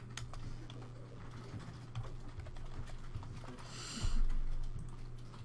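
Computer keyboard typing: light key clicks as a number is entered, over a steady low hum. About four seconds in comes a louder thump with a brief rustle.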